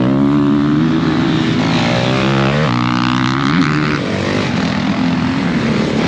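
Motocross bike engine running hard, its pitch shifting up and down in steps a few times.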